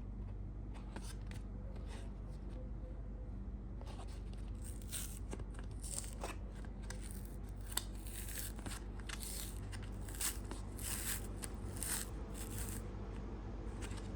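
Packaging of a toilet-bowl cleaner pack being handled and opened: a run of crinkling, crackling strikes that starts about four seconds in and stops near the end, over a steady low hum.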